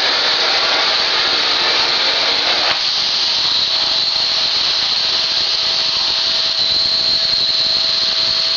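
Vacuum cleaner running with a steady loud rush of air. About three seconds in, the sound thins and a faint steady tone comes in.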